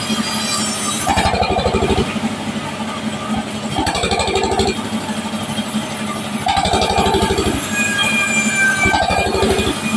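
Sawmill band saw and its drive engine running with a steady hum, the blade ripping a wooden plank lengthwise. The sound swells for about a second at a time, four times.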